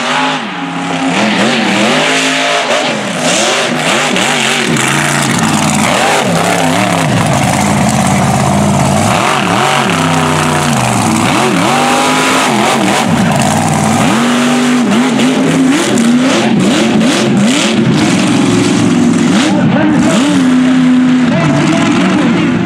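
Mega mud trucks' big engines revving hard at full throttle, the pitch rising and falling again and again, as the trucks race through the mud pit with their tyres churning and throwing mud.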